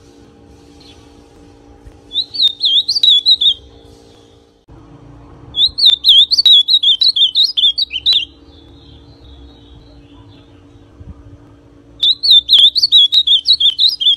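Young male ultramarine grosbeak (azulão) singing in a cage: three warbled phrases of quick up-and-down notes, each two to three seconds long, with short pauses between them; the last runs on past the end. A faint steady hum lies under the song.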